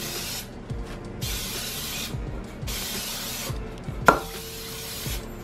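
Aerosol cooking spray hissing in about four short bursts with brief pauses between them as it coats the inside of an aluminum tube cake pan. About four seconds in there is a single sharp clink with a brief ring, the loudest sound.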